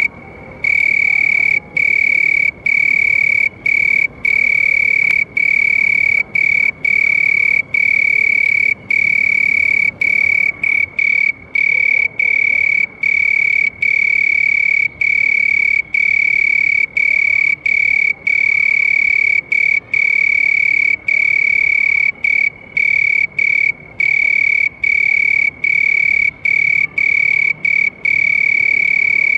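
A cricket chirping: a loud, shrill, steady trill on one high pitch, starting about half a second in and broken by brief gaps roughly once a second.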